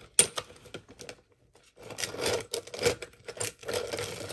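Seashells being handled, with a sharp click about a fraction of a second in, a few light ticks, then a busy stretch of clicking, rattling and rustling from about two seconds in.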